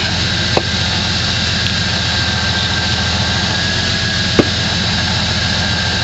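Jeep Wrangler YJ rock crawler's engine idling steadily while the Jeep sits stuck on a rock ledge, with two short sharp clicks, the louder one about four seconds in.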